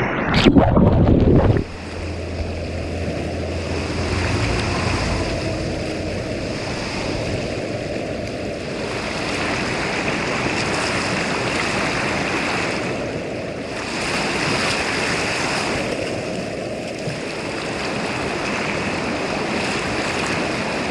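Whitewater river rapids rushing steadily, a dense hiss of moving water, after a louder burst of noise over the first second and a half.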